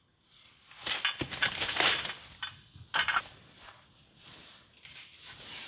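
Motorcycle exhaust pipe and heat shield being fitted by hand, metal clinking and scraping against metal. A dense cluster of clinks and rattles about a second in, a sharp clink near three seconds, then fainter taps.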